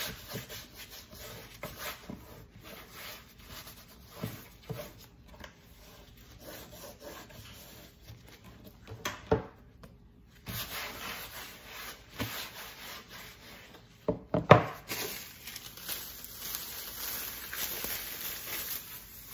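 A wet chopping board being wiped down by hand, a cloth rubbing and scraping over its surface in uneven strokes. Two sharp knocks stand out, one about nine seconds in and a louder one about fourteen and a half seconds in.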